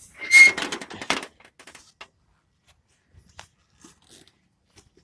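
Scrap items being handled and loaded: a loud scraping, crunching clatter lasting about a second, with a brief squeak in it, then a few light knocks.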